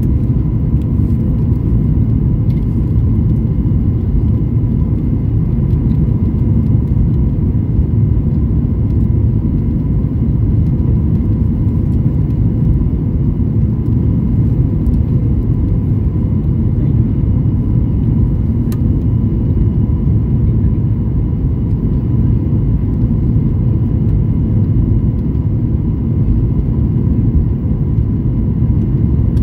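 Airliner jet engines and rushing air heard from inside the passenger cabin during the climb after takeoff: a steady, low rumble with faint steady tones above it.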